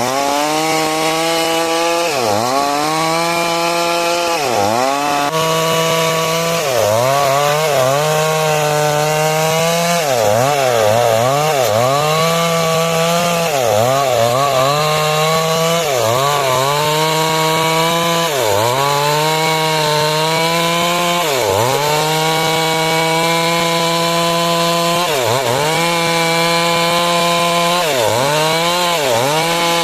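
Stihl MS 382 two-stroke chainsaw ripping lengthwise through a large rain tree (trembesi) log at high revs. Its pitch dips and recovers every couple of seconds as the chain loads up in the cut.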